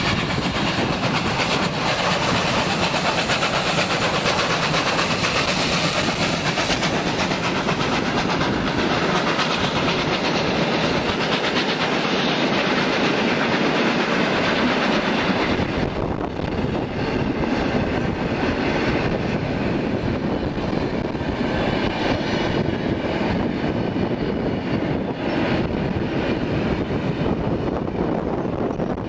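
Victorian Railways R class steam locomotives R761 and R707, double-heading a passenger train and working uphill, pass close by with heavy exhaust. After about fifteen seconds the hiss eases and the carriages roll past with wheels clacking over the rail joints.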